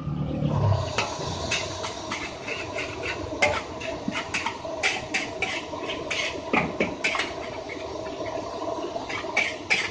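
A metal spatula clanking and scraping in a wok as fried rice is stir-fried: irregular sharp clanks over a steady sizzling hiss. A low hum fades out at the start.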